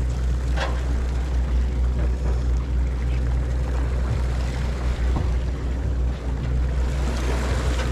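Boat engine running steadily, a constant low rumble and hum, with water washing along the hull.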